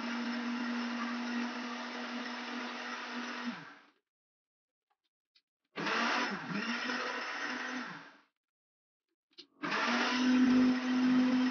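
Countertop electric blender pulsing chopped tomatoes, garlic and ginger for a rough, chunky mix: the motor runs about four seconds, stops, runs again for about two seconds, stops, and starts a third time after a short click.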